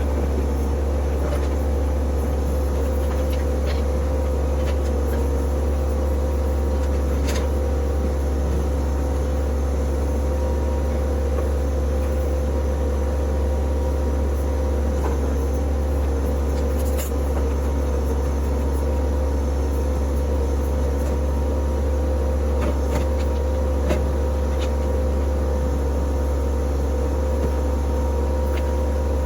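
Diesel engine of a TYM T264 compact tractor running at a steady speed, a constant low drone with a few faint knocks.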